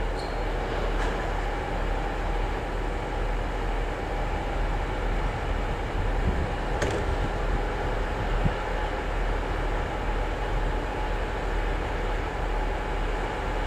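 KiHa 48 diesel railcars standing and idling, a steady low engine rumble with no change in pace. One sharp click sounds about halfway through.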